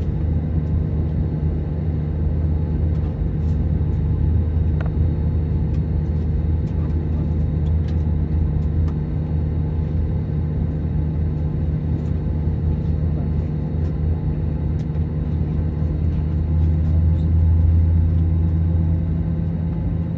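Steady low drone with a constant hum, heard inside an Airbus A320neo cabin during pushback and engine start, swelling slightly near the end. A few faint clicks sound in the cabin.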